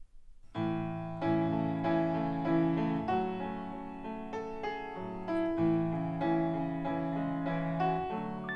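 A song with piano played back through Klipsch RP-600M bookshelf loudspeakers and picked up by a microphone in the room. The music starts about half a second in, with notes struck every second or so.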